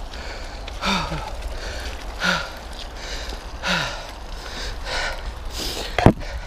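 A person breathing hard to get their breath back after exertion, with a voiced exhale that drops in pitch about every second and a half. A sharp knock sounds near the end.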